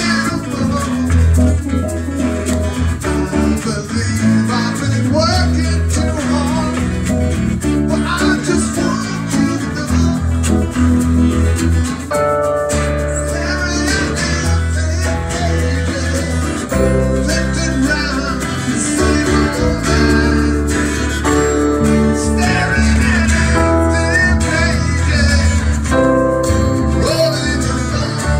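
Live band music: a strummed acoustic guitar with keyboard and a deep bass line, and a voice singing.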